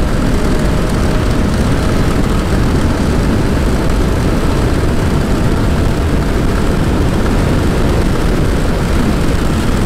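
Steady, loud wind rush over the microphone of a rider on an electric scooter travelling at about 100 to 113 km/h. There is no engine note, only the rushing noise of wind at speed.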